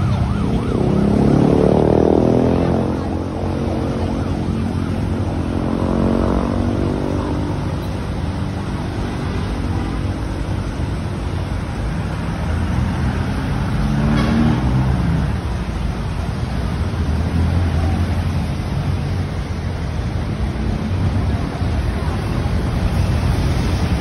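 City road traffic: a steady low engine rumble, with vehicles passing whose engine pitch slides as they go by, about a second in, again around five seconds in and near fourteen seconds in.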